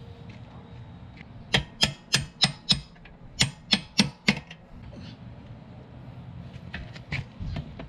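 Hammer blows on a workshop job. There are two quick runs of sharp knocks, five then four at about four a second, and a few fainter taps near the end.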